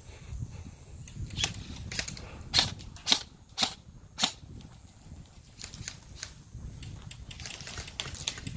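Airsoft guns firing single shots: about six sharp pops roughly half a second apart, then fainter clicks near the end.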